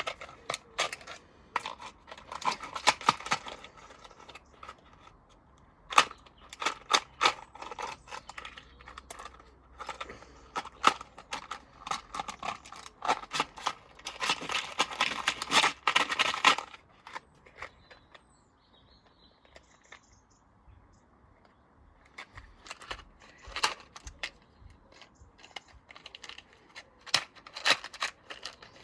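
LG washing machine being run to destruction, rattling and knocking in irregular clusters of sharp clicks and bangs, with a quieter lull of a few seconds past the middle.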